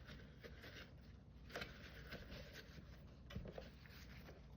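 Near silence: faint light rubbing and a few soft clicks of handling as a dirty Roomba filter is wiped clean with alcohol.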